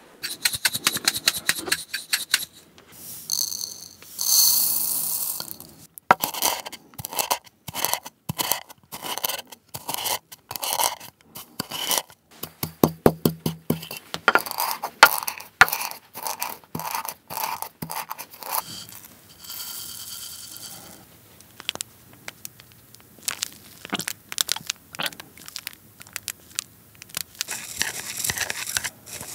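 Sesame seeds being ground with a wooden pestle in a wooden mortar: rapid, repeated scraping and crunching strokes for about the first eighteen seconds. Near the end, chopsticks stir sauce in a small ceramic dish.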